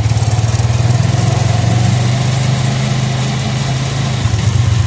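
Small motorcycle engine running steadily while riding, a low drone with a fast, even pulse.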